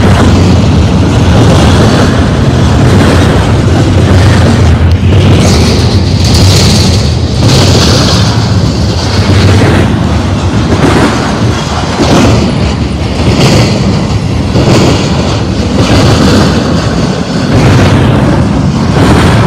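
Intermodal freight train's container well cars rolling past at close range: a loud, heavy rumble of steel wheels on rail, with a burst of clatter at a regular beat a little over a second apart as the wheel sets pass.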